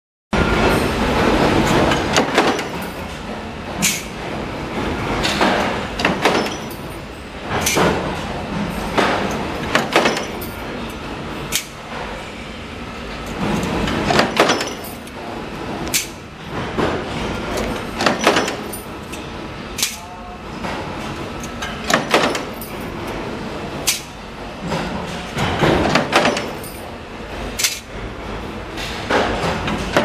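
Flywheel-driven mechanical punch press stamping sheet-metal lock plates: a sharp bang from each stroke every one to two seconds, over the steady running of the press.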